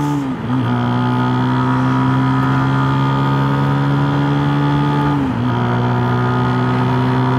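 A Unique 150cc motorcycle engine running steadily under load as the bike accelerates, with wind rushing past. The engine note dips briefly and picks up again twice, about half a second in and about five seconds in: upshifts through the bike's linear gear shift.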